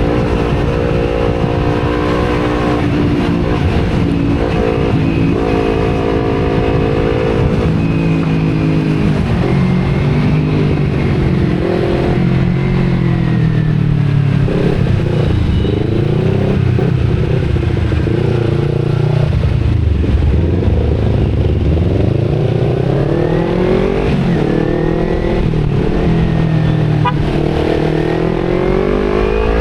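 Kawasaki Z250 parallel-twin motorcycle engine through an Akrapovic exhaust, ridden in traffic: a steady cruising note at first, then a lower note that wavers with the throttle through the middle, and twice near the end the pitch rises as the bike accelerates.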